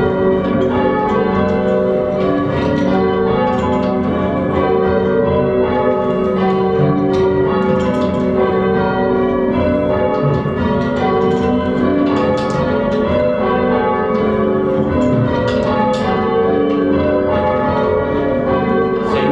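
A ring of five church bells being change rung, the bells striking one after another in a continuous, unbroken sequence with their tones overlapping.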